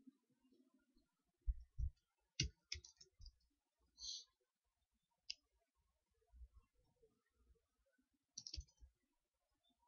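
Faint clicking of computer keyboard keys typing a search. A quick run of keystrokes comes about two and a half seconds in and another short run near the end, with a couple of dull low thumps just before the first run and a brief hiss about four seconds in.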